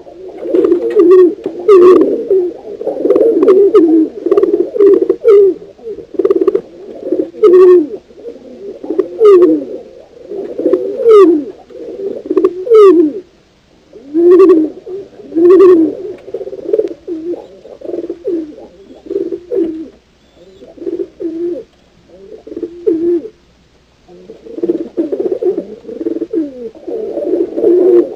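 Several pigeons cooing at once, their low calls overlapping almost without a break, with a few short high sweeps among them and brief lulls about halfway through and again later.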